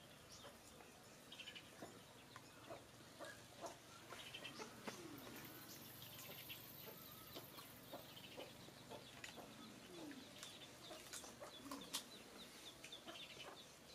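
Faint clucking of chickens, including a couple of low, falling clucks, over quiet outdoor background with small scattered clicks.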